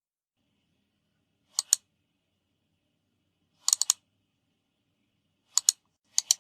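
Paparazzi camera-shutter sound effect: four quick bursts of two or three sharp shutter clicks, separated by silence.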